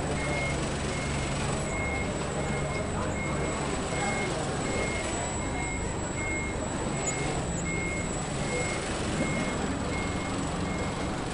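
Construction vehicle's reversing alarm beeping at an even pace over the steady rumble of a heavy engine running.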